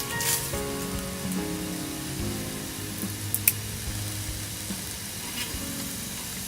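Food sizzling as it fries, with a steady crackle and a couple of sharp pops a little over three seconds in. Background music plays over it.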